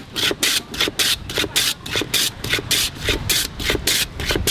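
A block of ice scraped rapidly back and forth across the blade of a wooden hand ice-shaver board, shaving off ice: a quick, even run of scrapes, about four or five a second.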